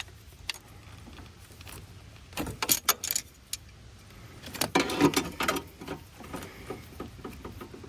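Metal clinking and rattling of hand tools and parts while working on an ATV carburetor, in two short flurries about two and a half and five seconds in.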